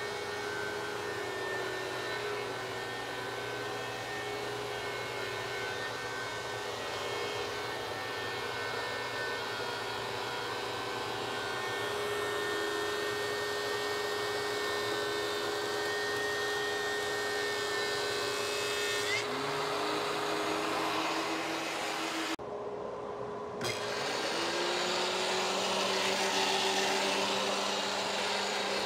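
A DeWalt DW735 thickness planer with a Shelix helical carbide cutterhead runs with a steady motor whine while planing a board. About twenty seconds in, the sound breaks off. The planer is then heard with its chip-ejection impeller removed: it rises in pitch as it spins up, then runs steadily.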